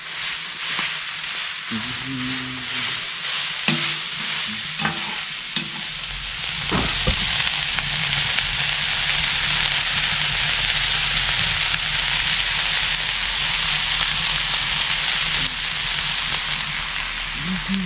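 Ground meat with onion and tomato sizzling in a plow-disc pan (disco de arado) over a wood fire, stirred and scraped with a long-handled metal spatula. The sizzle grows louder about six seconds in and then holds steady.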